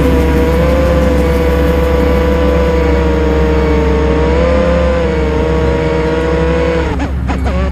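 FPV quadcopter's brushless motors (ZMX Fusion 2206 2300kv) spinning triblade props in flight, a loud steady whine whose pitch wavers slightly with throttle. Near the end the pitch dives sharply and climbs straight back up, as the throttle is chopped and punched again.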